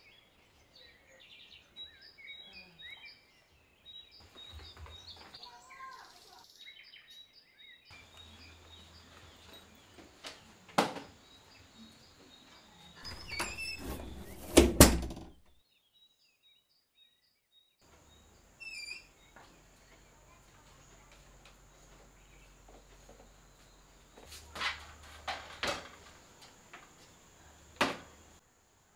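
Household movement sounds: a series of knocks and thuds, the loudest a cluster of sharp knocks about halfway through, with birds chirping faintly in the background. A short stretch of near silence falls in the middle.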